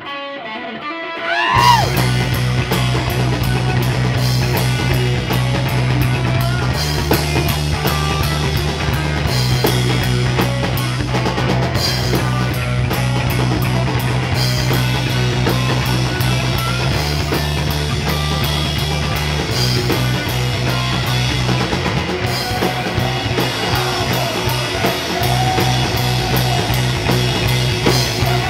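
Rock trio playing live: electric guitar, electric bass and a Mapex drum kit. After a quieter guitar opening, the whole band comes in loud about a second and a half in, over a heavy, shifting bass line.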